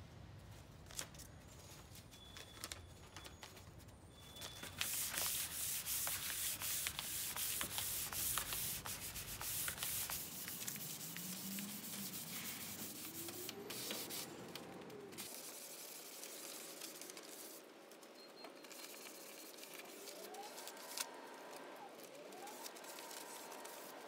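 Hand sanding a stripped teak tabletop with 220-grit sandpaper on a sanding block, the fine second pass for a smooth finish: a back-and-forth rubbing that starts about five seconds in, is loudest for the next few seconds, then goes on more softly.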